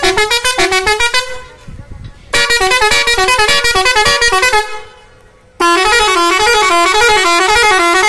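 A musical multi-tone air horn on a tractor plays a tune in three loud bursts, its notes stepping up and down. The first burst ends about a second in, and the last warbles back and forth between two notes.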